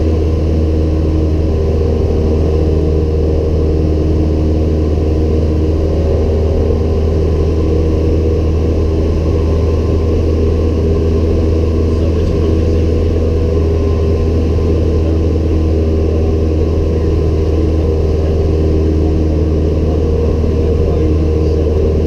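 A Cessna 172M Skyhawk's four-cylinder Lycoming O-320 engine and propeller running steadily in cruise, heard loud from inside the cabin as a deep, even hum.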